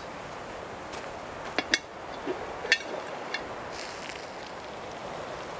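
A few short clinks and knocks, scattered between about one and a half and three and a half seconds in, over a steady outdoor background hiss.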